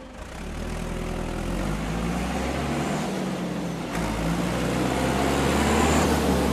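A motor vehicle engine running and pulling away, getting steadily louder, its pitch stepping up about one and a half and again about four seconds in, like gear changes.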